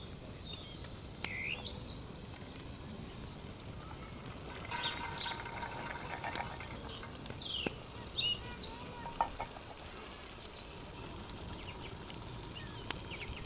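Birds chirping, with scattered short rising and falling calls over a steady low background noise. About five seconds in there is a longer, lower call lasting a second or two.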